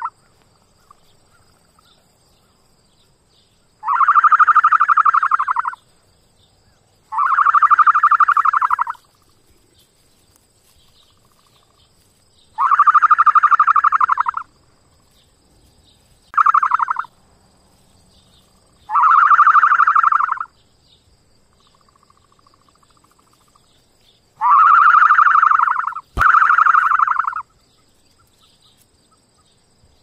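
Ostrich calling over and over: seven separate mid-pitched calls, most about one and a half to two seconds long, with pauses of a few seconds between them. Near the end two calls come back to back, split by a sharp click.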